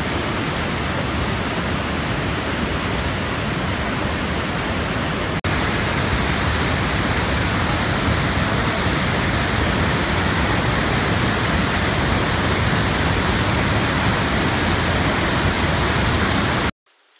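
Steady rush of a mountain creek's rapids and a waterfall pouring into a pool, with a brief break about five seconds in. It cuts off suddenly near the end, leaving only a faint hiss.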